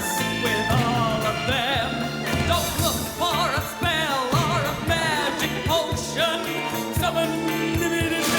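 Sung theme music: a voice with wavering pitch over a backing band with a steady beat.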